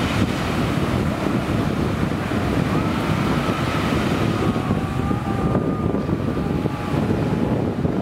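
Wind buffeting the microphone over the wash of small waves on the Mediterranean Sea. A faint, thin, steady tone drifts in about three seconds in and fades shortly before the end.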